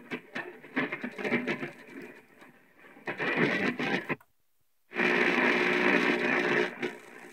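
Sony boombox speaker playing the AM band as it is scanned: broken fragments of station audio and static, cutting to silence for under a second about four seconds in, then a louder station for nearly two seconds before it fades back down.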